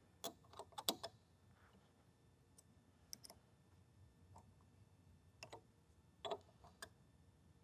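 Light metallic clicks and taps of hand wrenches working on the seamer chuck's center bolt, in a few short clusters: several near the start, then a few more about 3, 5.5 and 6.5 seconds in.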